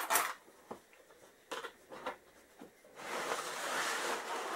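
A tool kit being handled: a few light clicks and knocks, then a rustling scrape lasting about a second and a half.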